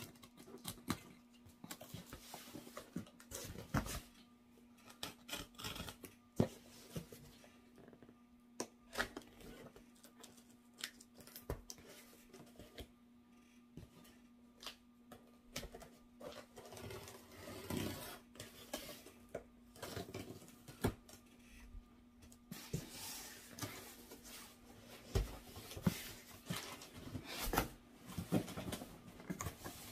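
A cardboard shipping box being opened: scattered light scrapes and clicks as the packing tape is slit, then, about three-quarters of the way through, denser rustling and scraping of cardboard as the flaps are pulled open. A faint steady hum underneath.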